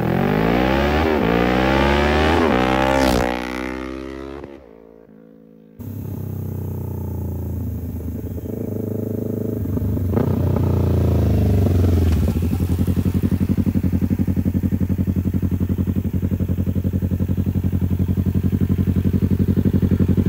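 Kawasaki Ninja 650's parallel-twin engine through an unbaffled Hindle Evo megaphone exhaust. It first revs up with its pitch climbing and stepping between gears, then fades away. About six seconds in the engine sound cuts back in abruptly, drops in pitch around ten seconds in as the bike slows, and then settles into a steady, pulsing idle.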